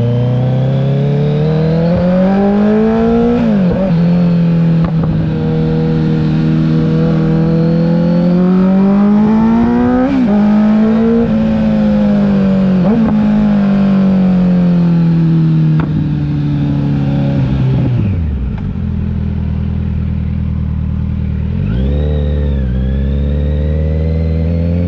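Kawasaki Z900's inline-four engine through an aftermarket CS Racing exhaust and headers, its pitch climbing and dropping sharply twice as if shifting up through the gears, holding steady between. It then winds down slowly for several seconds and settles to a low steady note, with a brief dip near the end.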